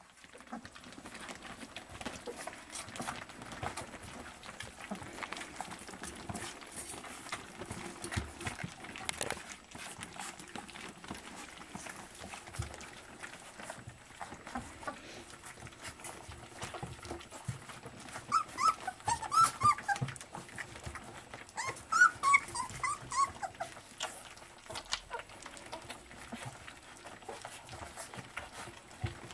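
A litter of puppies eating from a stainless steel feeding dish, with many small clicks and clinks against the metal throughout. Two quick bursts of short, high puppy whines about two-thirds of the way through are the loudest sounds.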